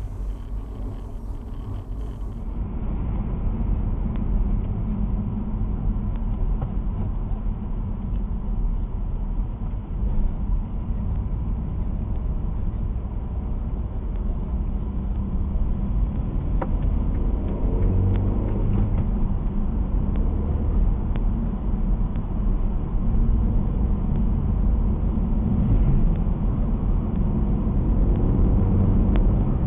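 Car interior driving noise: engine and tyre rumble, steady, heard from inside the cabin, growing a little louder toward the end as the car speeds up.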